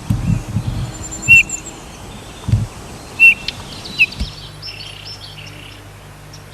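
Goldfinch calling: short, sharp chirps a couple of seconds apart, then a run of higher, thin twittering, over low rumbling outdoor noise.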